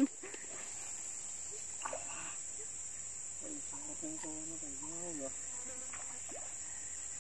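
Steady high-pitched drone of insects, unbroken throughout.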